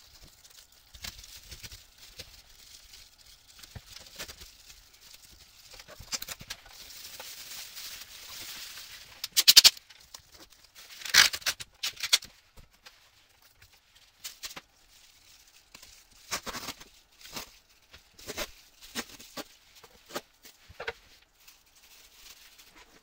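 An air conditioner being handled and taken apart: scattered clicks, knocks and rattles. A faint hiss runs for a few seconds near the middle, and two sharp, loud knocks come at about ten and eleven seconds in.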